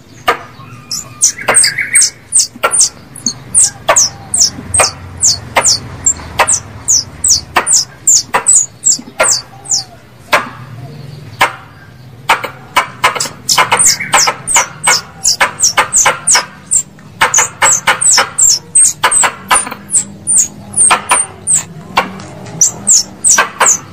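Coconut squirrel (plantain squirrel) calls used as a hunting lure: runs of sharp, high-pitched chirps, each falling in pitch and opening with a click, coming two to five a second in bouts with short pauses between.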